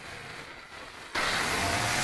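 Angle grinder cutting a marble strip: a steady, dense grinding hiss. The first second is much quieter, then the full cutting noise comes back abruptly about a second in.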